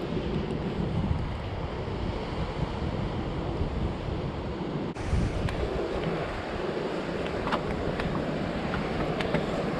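Sea waves washing on the shore with wind buffeting the microphone, a steady rushing noise. About five seconds in the sound changes abruptly, and a few sharp clicks follow.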